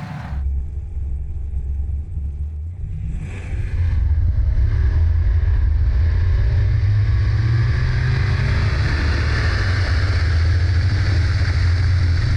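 Supercharged LSA V8 of a VL Commodore drag car running. It steps up sharply in loudness about four seconds in, then holds a loud, steady drone.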